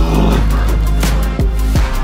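Background music with a heavy, steady bass and punchy drum hits.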